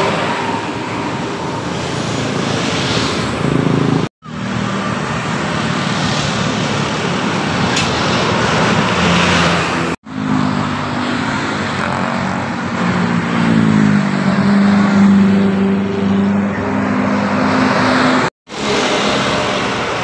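Road traffic passing close by: buses, cars and motorbikes driving past, with a large vehicle's engine note rising and then holding in the second half. The sound breaks off sharply three times for an instant.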